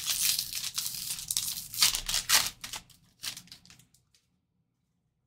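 A trading-card pack wrapper being torn open and crinkled in the hands, with a few sharper crackles about two seconds in. It stops about four seconds in.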